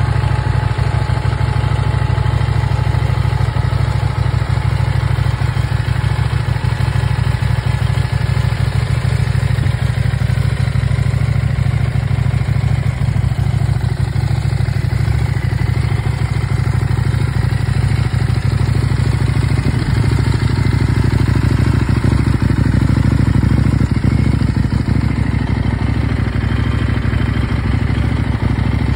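CFMOTO 800NK's 799 cc parallel-twin engine idling steadily in neutral, a deep, punchy exhaust note with no revving.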